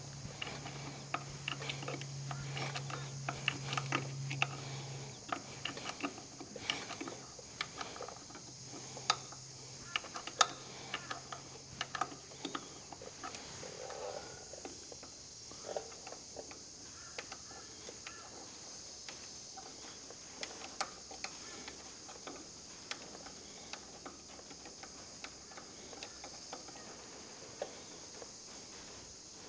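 Light metal clicks and clinks of a spanner on a steel hydraulic fitting as it is worked loose on a tractor's power steering pump, frequent at first and thinning out in the last third as the fitting is turned out by hand. A low steady hum sounds for the first few seconds and again around ten seconds in.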